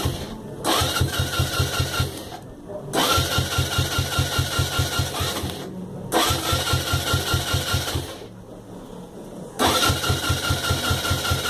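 Suzuki Yes 125 cc single-cylinder motorcycle engine being cranked on the electric starter in repeated attempts, a whining starter over a fast chugging of about six strokes a second. It stops and starts again four times without the engine catching and running.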